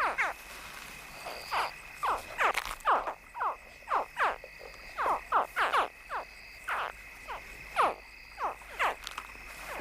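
Chorus of Nile crocodile hatchlings chirping: many short, downward-sliding chirps, several a second and overlapping, the young calling from the nest at hatching time to bring the mother. A steady high tone runs underneath.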